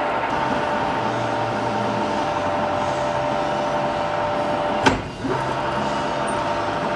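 Shop machinery running steadily with a whine made of several tones, broken by one sharp click about five seconds in.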